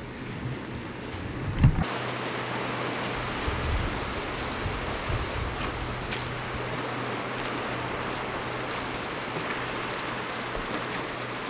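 A steady rushing noise that swells about one and a half seconds in and then holds, with a low thump at the moment it swells.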